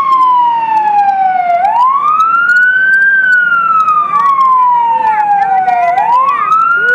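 Fire engine's electronic wail siren sounding continuously, loud. Its pitch climbs quickly for about a second and a half, then sinks slowly for about three seconds, and begins to climb again near the end.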